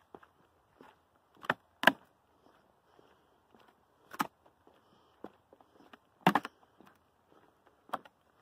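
A hiker's footsteps on a wooden plank boardwalk: uneven knocks and clicks of boots on the boards, a few of them sharp and loud, with fainter ticks between.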